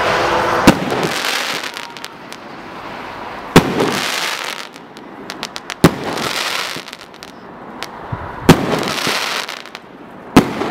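A 40 mm firework cake firing shot after shot: five loud bangs about two and a half to three seconds apart, each followed by a crackling hiss as the shell bursts and burns out.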